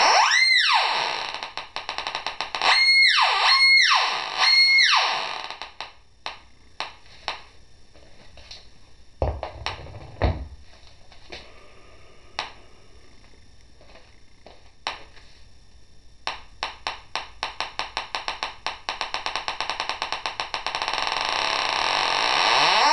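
Pulse induction metal detector's audio output responding to a weightlifting bar nut held over its coil: an electronic tone swells and falls in pitch four times in the first five seconds, then gives way to scattered clicks. From about the middle the clicks speed up into a fast even ticking that merges into a loud steady tone near the end, the signal growing as the nut nears the coil; a single low thump sounds around ten seconds in.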